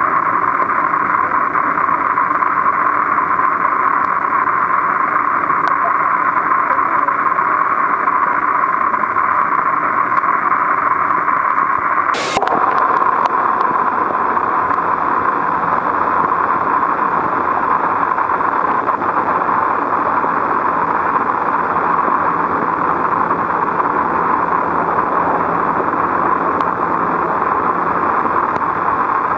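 Steady, even water hiss picked up by a camera filming underwater in a sea-turtle tank, strongest in the middle range, with a brief sharp click about twelve seconds in.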